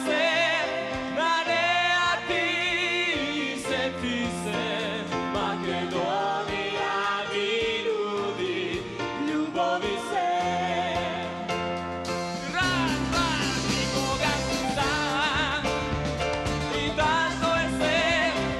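Live unplugged rock band with a male lead singer singing with vibrato over bass guitar and band accompaniment; the band gets fuller about twelve seconds in.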